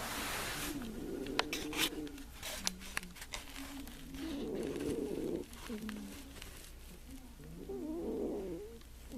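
Russian Blue cat snoring in deep sleep: low rasping breaths that swell and fade every few seconds. A few sharp clicks come between one and three seconds in.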